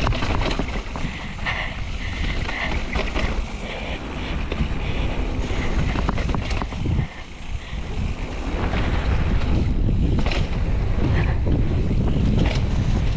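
Wind rushing over the camera microphone of a mountain bike descending a dirt trail, mixed with tyres on dirt and the rattle and clack of the bike over braking bumps and rocks. The rumble drops briefly about seven seconds in.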